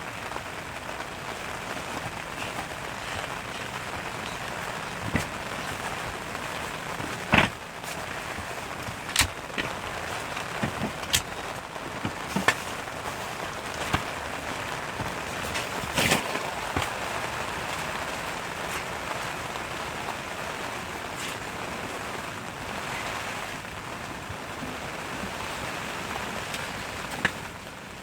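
Steady rain falling, an even hiss with scattered sharp taps and knocks, the loudest about seven and sixteen seconds in.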